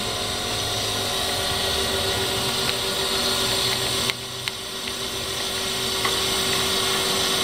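Brown & Sharpe Micromaster 618 surface grinder making a test grind: the wheel hisses steadily against a part on the magnetic chuck over the steady hum of the spindle, which runs on new bearings. The hiss dips about four seconds in and builds back up.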